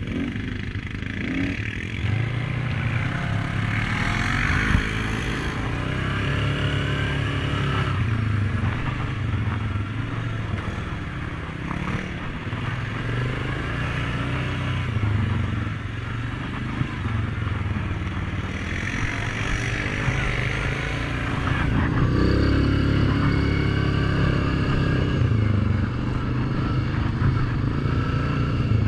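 Suzuki King Quad ATV engine running under way on a dirt trail, the revs rising and falling with the throttle.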